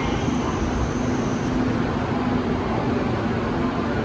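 Seoul Subway Line 1 train standing at the platform: a steady low rumble with a constant hum from the idling train, while its doors open. A faint high tone sounds for about a second near the start.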